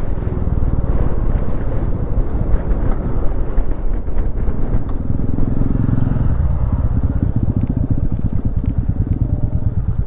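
Royal Enfield Meteor 350's single-cylinder engine running at riding speed, its steady low thump heard under a dense rumble of strong wind buffeting the microphone.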